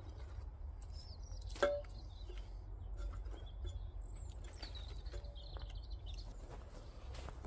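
Crumpled newspaper rustling and kindling sticks being packed into a washing-machine-drum fire pit, with one sharp knock and a brief ring about a second and a half in, as wood strikes the metal drum. Small birds chirp in the background.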